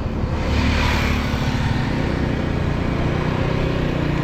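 Motorcycle engine running steadily while riding, with road noise; a hiss swells briefly about half a second in.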